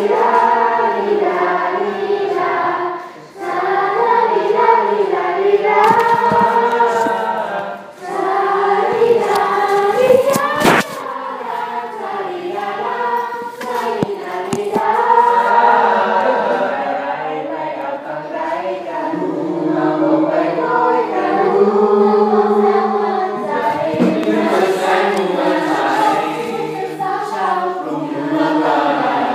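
High-school choir rehearsing, singing a piece in several voice parts. The phrases break off briefly about three and eight seconds in, and a sharp click sounds about ten seconds in.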